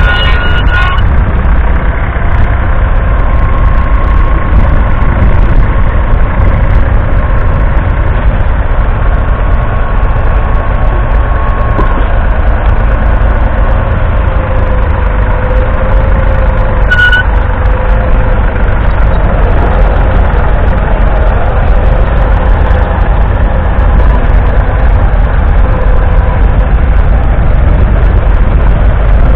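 David Brown 770 Selectamatic's 2.4-litre three-cylinder diesel engine running steadily under load while pulling a plough, heard close up with a heavy low rumble. A short high-pitched tone sounds about halfway through.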